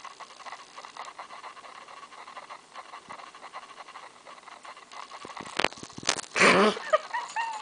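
Brindle Boston terrier puppy panting, with small rustles and clicks. About six seconds in comes a sudden loud, brief vocal outburst, followed by a few short, high, falling cries.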